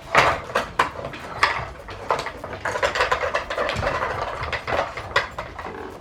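Dog treat puzzle toys clattering and clicking as huskies push at their sliding lids and compartments to get at the treats: many irregular sharp knocks of hard pieces.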